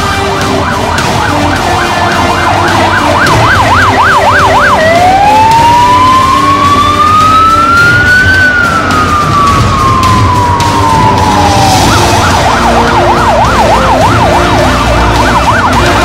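Electronic siren on a Ford Transit fire-brigade van, sounding as the van drives past. It runs a fast yelp for about five seconds, switches to a slow wail that rises and then falls once, and goes back to the fast yelp for the last few seconds.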